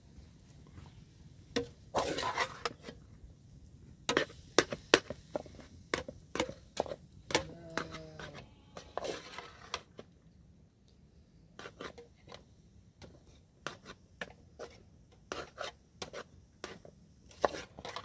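A metal ladle stirring a pot of cooked greens, clinking and scraping against the metal pot in irregular sharp knocks. A sheep bleats once about eight seconds in.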